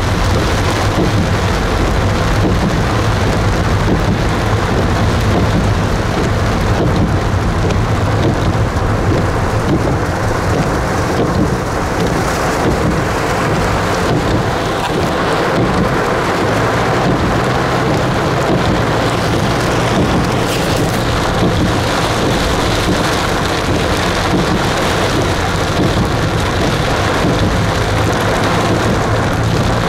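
Heavy downpour: a steady, loud wash of rain, with a low steady hum underneath.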